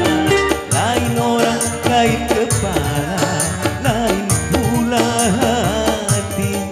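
Live dangdut music: a man sings a melody into a microphone over a small band with keyboard.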